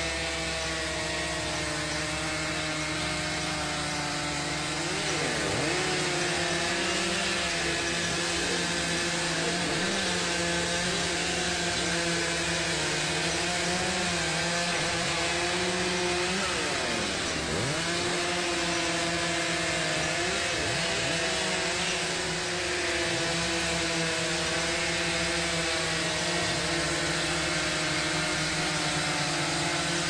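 Gasoline chainsaw running and cutting through a large log, its engine pitch dipping and rising as the chain bites into the wood. It gets louder about five seconds in.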